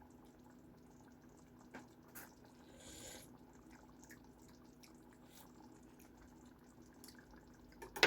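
Faint kitchen sounds: a steady low hum under a few light clicks, with a short breathy hiss about three seconds in and a sharper click at the very end.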